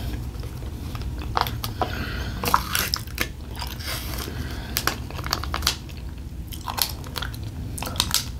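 A person chewing and biting food close to the microphone, with scattered crisp crunches and mouth clicks, over a steady low hum.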